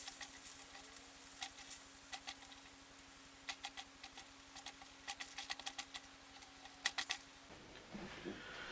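Faint, irregular clicks and light taps of small parts being handled, over a faint steady hum that stops near the end.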